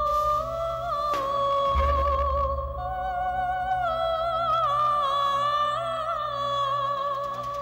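Background score music: a long held melody that wavers slightly in pitch, over a low drone. A second melodic line joins about three seconds in, and a deep low boom sounds about two seconds in.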